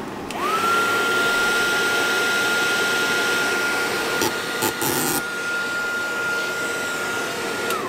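Wagner heat gun running: its fan spins up with a whine that rises within a split second to one steady pitch, runs steadily, then winds down as it is switched off near the end. A few faint clicks midway.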